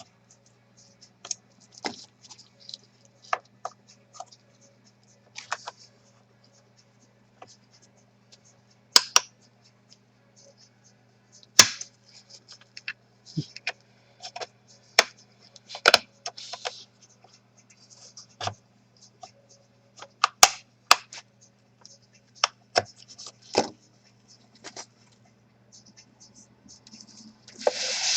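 Gloved hands working on a laptop's plastic case with small tools: irregular sharp clicks, taps and short scrapes of plastic, several of them loud, with a longer rustling scrape at the end and a faint steady hum underneath.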